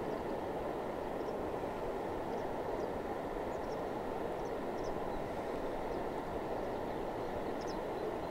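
Steady low rushing background noise with no clear source, with a few faint short bird-like chirps now and then.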